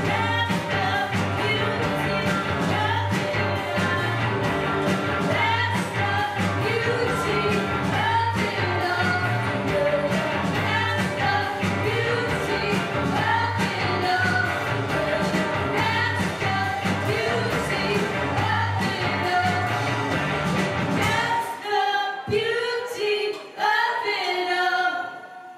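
Live indie rock band playing a song with a steady beat, electric guitars and sung vocals. About 21 seconds in the bass and beat stop, leaving the singing alone for the last few seconds.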